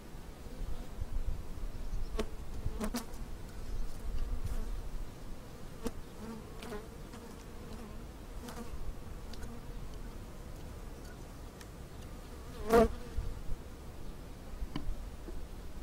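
Honeybees buzzing steadily over an open hive, with a series of sharp clicks and knocks from a steel hive tool and wooden frames being pried apart; the loudest knock comes near the end.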